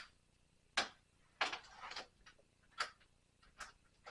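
A few sharp clicks and knocks with a brief rustling scrape, as a clothes drying rack is handled: one click about a second in, a longer scrape just after, then two more clicks near the end.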